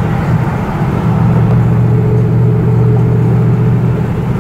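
Steady low drone of car engine and road noise at a constant cruising speed, heard from inside a moving vehicle. No revving.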